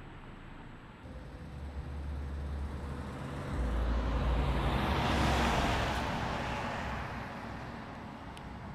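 A car passing by on the road: a low rumble comes in about a second in, the tyre and engine noise swells to a peak around the middle and then fades away.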